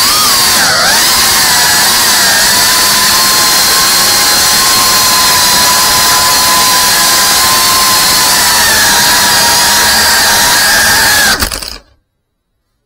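Indoor FPV whoop drone's motors whining at low throttle: the pitch dips briefly about a second in, then holds steady. Near the end a knock and the motors cut out suddenly, as the drone crashes.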